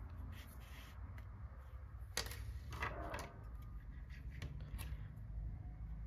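Small scissors being handled and snipping yarn, with light rubbing of the crocheted toy in the hands. There are a few small clicks, a sharper click about two seconds in and a short rustle just after it, over a low background hum.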